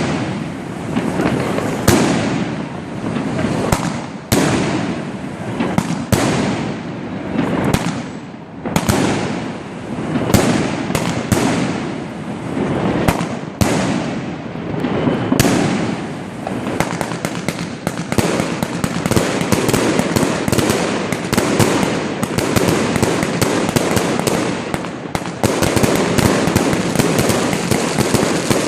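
New Year's Eve fireworks going off in a steady barrage of bangs and crackles, separate booms a second or so apart at first, merging into near-continuous rapid crackling past the halfway point.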